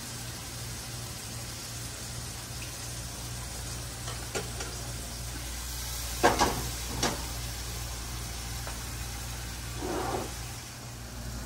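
Pieces of salt cod sizzling gently in oil in an aluminium frying pan over a gas burner, with a steady low hum underneath. A few sharp metal clinks of a fork against the pan come about four to seven seconds in, and a brief louder swell of sizzling near the end.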